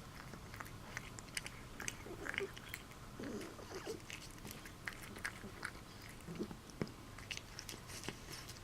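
Domestic cat eating noisily: a steady run of quick chewing clicks and wet smacks, with a few lower breathy noises mixed in about two to three seconds in and again near six and a half seconds. The sitter says these sound almost like a breathing problem, though heard only while she eats, and a vet found her okay.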